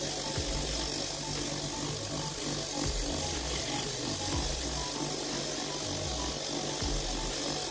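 A motor-driven abrasive wheel spins at speed, grinding rust off an iron knuckle-duster held against it. Background music with a steady beat plays over it.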